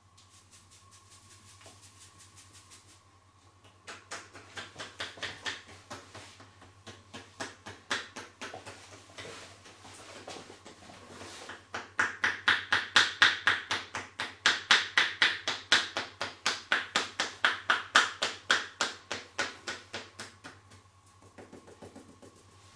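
Hands striking the body in a percussive massage, an even run of slaps about four a second. The strikes start lightly about four seconds in and grow louder from about halfway until shortly before the end.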